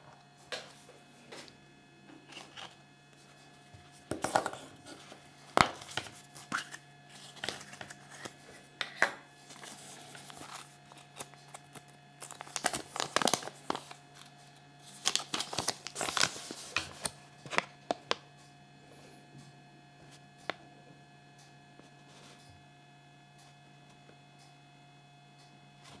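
Crinkling and tearing of thin packaging, in irregular bursts with small clicks, dying away after about 18 seconds.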